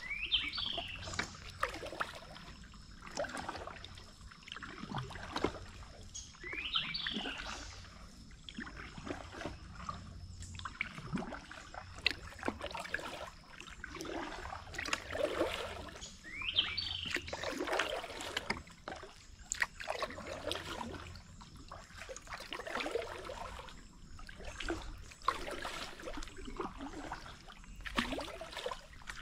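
Kayak paddle strokes: the blades dipping and splashing, water dripping off them, in a regular rhythm as the kayak moves along a slow, shallow river.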